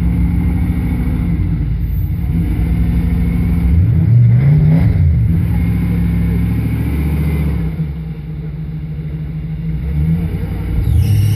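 Engine of a rock-crawling Ford 4x4 running steadily under load at crawling speed. It revs up and falls back about four seconds in, and revs up again near the end, as the truck works over the boulders.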